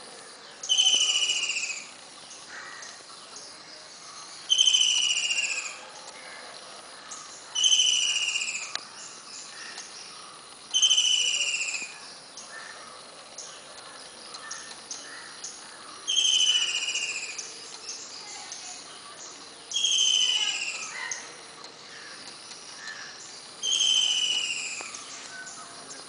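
Woodpecker calling: seven loud, falling rattles of quick notes, each about a second long, repeated every three to four seconds. Fainter chirps in between.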